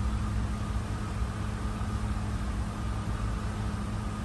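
Steady low hum of a vehicle inside the car cabin, with a faint steady whine above it and no change.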